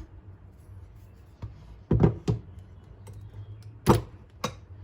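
A spoon knocking and clinking against a bowl or container while sugar is scooped in: a pair of sharp knocks about two seconds in, then two more near the end, over a low steady hum.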